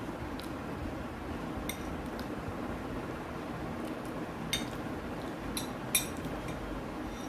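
Metal spoon clinking and scraping on a glass plate: a few sharp, separate clicks, the loudest about six seconds in, over a steady low background hum.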